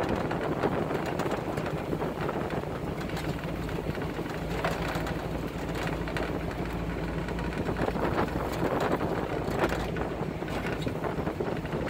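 Vehicle engine running steadily at low speed while driving over a rough dirt track, with frequent small knocks and rattles from the body bumping along.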